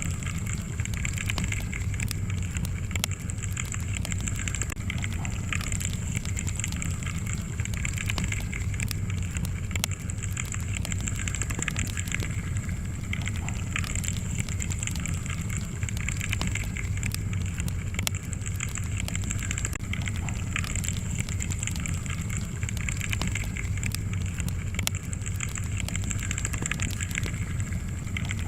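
Wood fire burning in a fireplace: many small sharp crackles and pops, scattered irregularly over a steady low rumble of the flames.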